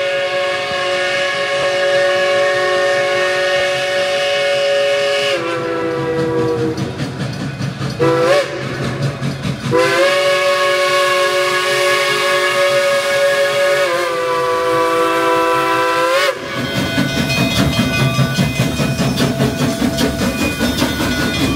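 Narrow-gauge K-28 steam locomotive's chime whistle sounding a long blast, a short one and another long blast, each sagging in pitch as it closes off. About three-quarters of the way in the whistle stops and the locomotive's exhaust beats take over, a steady rhythmic chuffing with rail clatter as the train works past.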